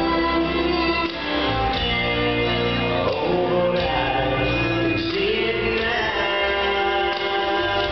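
Slow waltz music with a singing voice, playing steadily for the dancers.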